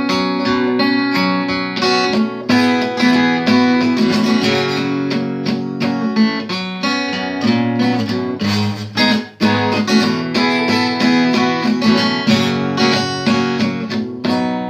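Acoustic guitar strummed in chords as an instrumental break with no singing, with a brief drop in level about nine seconds in.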